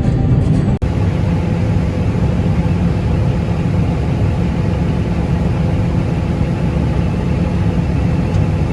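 Heavy farm machinery engine running steadily at a constant speed, a low even drone, which starts after a sudden cut about a second in.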